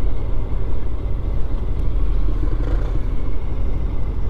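Motorcycle riding slowly on the road, a steady low rumble of engine and road noise.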